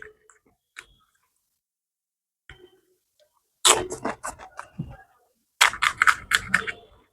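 Crisp fuchka (pani puri) shells being bitten and chewed close to the microphone: a few faint clicks, then two bursts of sharp crunching cracks, the second near the end.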